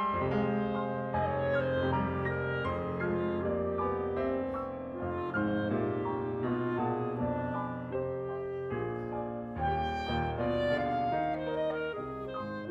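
Clarinet and grand piano playing together in a classical duet, the clarinet holding sustained melody notes over piano chords.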